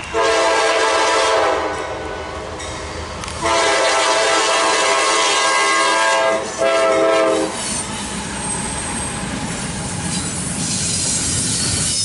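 Horn of a Norfolk Southern GE C44-9W (Dash 9) locomotive sounding three blasts: long, longer, then short. After the horn stops, the locomotives and double-stack container cars pass close by with a steady rush of wheels on rail that grows toward the end.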